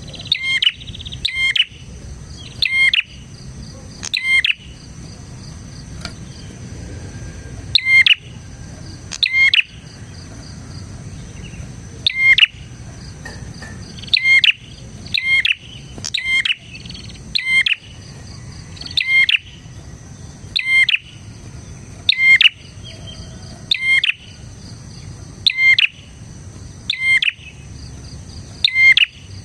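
Prinia (prenjak) calling: short, sharp, loud chirps repeated every second or two, some in quick pairs, with a few longer pauses. A faint steady insect whine runs underneath.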